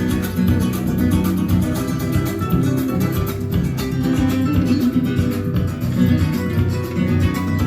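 Music: guitar playing in a flamenco style, with continuous plucked and strummed notes.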